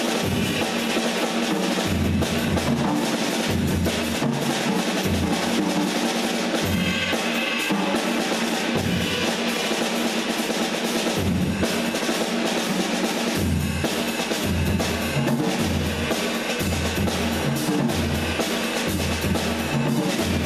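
Live jazz group playing, with the drum kit prominent: steady cymbal wash and drum hits over a line of low bass notes.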